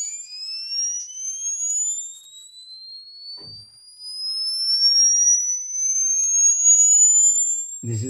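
Sine sweep played through a tiny peripherally actuated MEMS micro-speaker: a single pure tone rising steadily in pitch, with a stronger overtone above it. It is heard over a video call.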